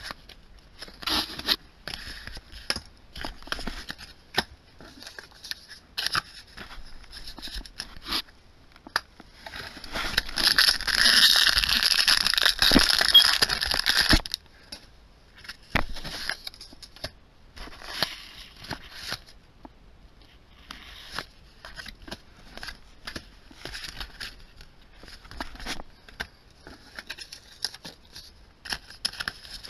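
Yu-Gi-Oh! trading cards being handled and set down on piles, a steady run of short card flicks and taps. Midway there are about four seconds of loud foil crinkling and tearing as a booster pack wrapper is torn open.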